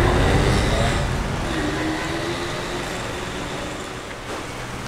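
Wind rushing over the microphone while cycling beside road traffic, with a steady low hum coming in near the end.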